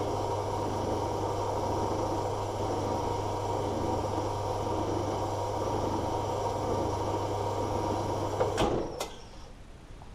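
Small horizontal metal-cutting bandsaw running steadily as its blade cuts through a solid aluminium bar about 65 mm across. Near the end two knocks mark the cut finishing, and the sound dies away.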